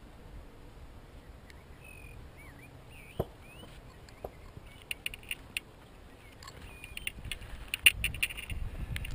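A bird sings short warbling, gliding phrases in the background. A sharp knock about three seconds in, then from the second half a run of clicks and rustling as long binding rods are handled and carried against the laid hedge.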